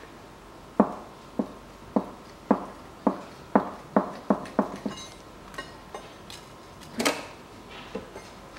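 Hand tools working the cylinder head bolts of a 1.5-litre engine: about a dozen sharp metallic clicks and knocks, roughly half a second apart and speeding up, then faint ringing, and one louder knock near the end.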